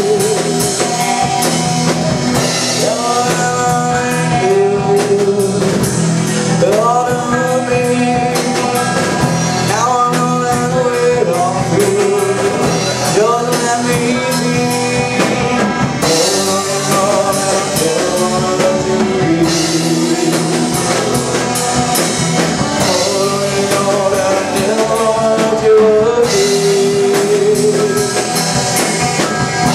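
Rock song: a sung lead vocal over a full band with a drum kit.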